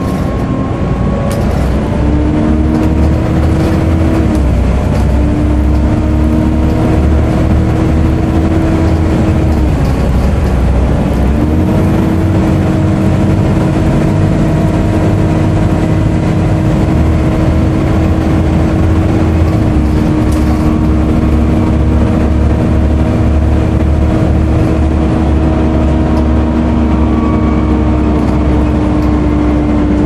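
Volvo B7TL double-decker bus's six-cylinder diesel running on the move, heard from inside the upper deck, with the engine cooling fan's steady whine, the 'hoover' sound, over the low engine drone. The whine dips briefly about four and ten seconds in, then holds steady.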